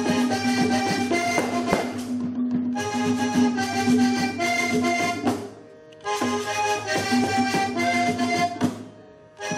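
Live Panamanian música típica: a diatonic button accordion plays a melody over a hand-played drum and a small stick-played drum keeping a steady beat. The music drops away briefly twice.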